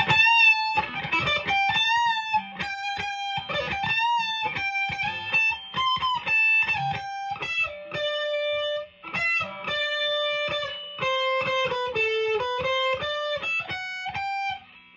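Electric guitar, an Epiphone Les Paul Traditional PRO-III Plus with its bridge humbucker coil-split, played through the ultra gain channel of a Marshall amp. It plays a single-note lead line of held notes with bends and vibrato, and stops shortly before the end.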